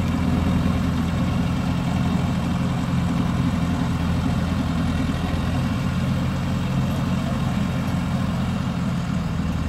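Diesel engine of a heavy TMT cargo truck running steadily under load as the truck crawls up a steep mud slope on chained tyres.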